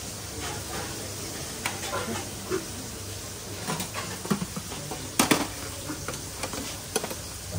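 Metal serving spoon scraping and clinking against aluminium pots and stainless steel thali bowls as food is ladled out, with scattered sharp clinks and a louder clatter a little past five seconds in, over a steady kitchen hum.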